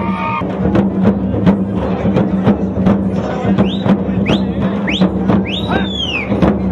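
Several large frame drums (dappu) beaten with sticks in a fast, dense rhythm. From about halfway, a few shrill rising glides cut through the drumming.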